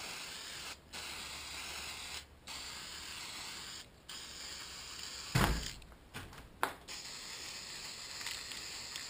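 Aerosol spray paint can hissing in a run of bursts about one to one and a half seconds long with short breaks between, spraying black paint onto wire mesh. A single thump about five and a half seconds in.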